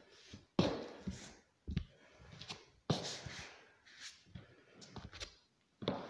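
Walking on two forearm crutches across a bare wooden floor: rubber crutch tips and steps from a high-heeled pump and a sandal knocking on the boards in an uneven rhythm, about eight to ten knocks.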